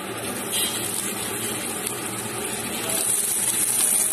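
Raw potato wedges going into hot oil in a kadai and sizzling. A brief burst comes about half a second in, and the sizzle grows louder about three seconds in as more wedges go in.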